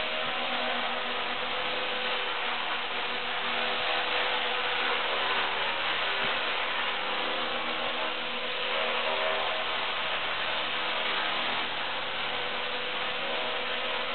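Esky Honeybee King 2 electric RC helicopter hovering: a steady buzzing whine from its electric motor, gears and spinning rotors, swelling and easing a little as it drifts.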